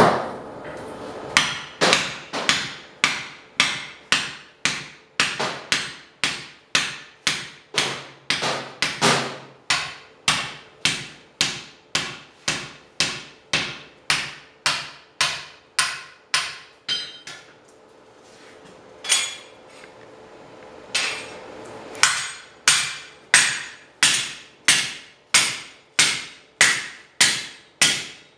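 Hammer blows on 1/4-inch steel plate being hand forged, struck steadily about two times a second, each blow ringing briefly. The hammering stops for about three seconds two thirds of the way through, then starts again at the same pace.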